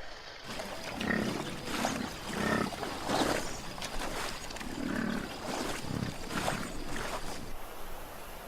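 Grizzly bear and gray wolves in a standoff: a run of about seven short growls and barks, roughly a second apart.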